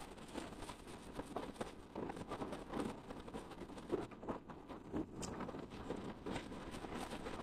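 Wind and tyre noise from road bicycles riding on a concrete road, with irregular taps and clicks throughout.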